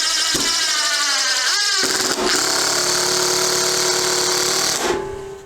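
Ryobi One+ HP brushless impact driver running under load in its mode 2 speed setting: a motor whine that drops in pitch over the first second and a half, briefly speeds up again, then holds steady before stopping near the end.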